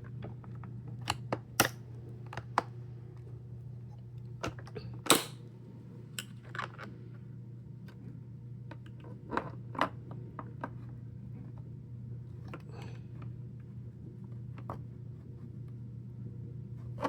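Scattered sharp clicks and taps of a tool prying at a stubborn plastic snap-on cover of a Hoover vacuum cleaner, the loudest about five seconds in.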